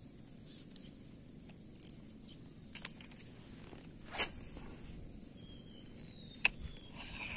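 Spinning reel casting and retrieving: a swish of the cast about four seconds in, a sharp click about six and a half seconds in as the bail arm snaps shut, then the reel starts whirring steadily as the handle is cranked near the end.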